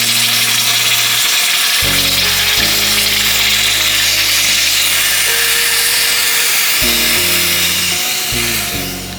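A loud steady hiss of a red-hot iron ball sizzling as it melts into ice, over background music with held low notes that change every second or two. The hiss fades near the end.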